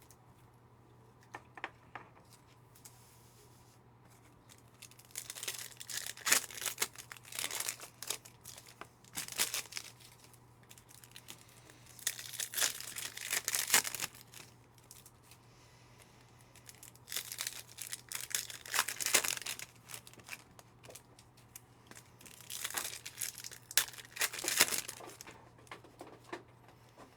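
2025 Panini Optic hobby card packs being torn open, their wrappers ripping and crinkling in four bouts of a few seconds each, with quiet gaps between.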